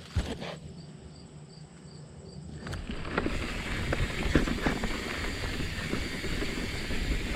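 Mountain bike starting down a dirt trail: quiet at first, then from about three seconds in a steady noise of tyres on dirt, rattling frame and drivetrain, small knocks and wind on the helmet camera.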